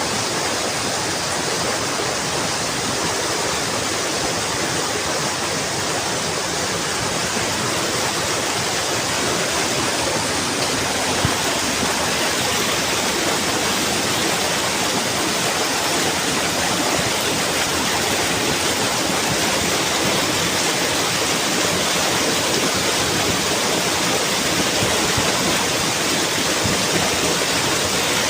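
Fast mountain stream rushing steadily, a loud, even roar of water.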